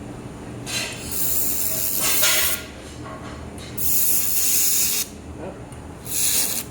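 Handheld laser welder firing in three hissing bursts on stainless steel, the first nearly two seconds long and the last short.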